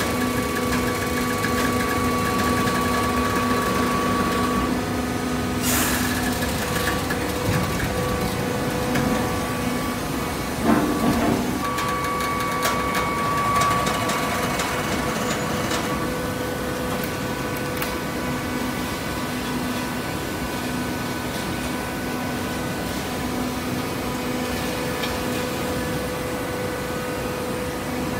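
Hydraulic cardboard baler's electric motor and pump running with a steady hum, with a brief knock about six seconds in and a short clatter near eleven seconds.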